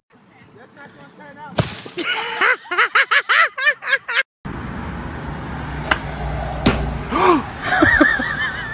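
A sharp knock, then a person's voice in quick up-and-down bursts. After a cut comes a noisy outdoor rumble with a couple of knocks and short voice sounds, and a wavering high-pitched voice near the end.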